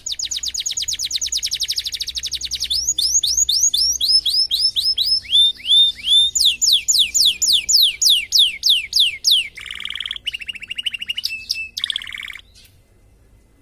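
Domestic canary singing a long run of song: fast trills and rows of repeated down-slurred whistles, switching from one phrase to the next, stopping shortly before the end.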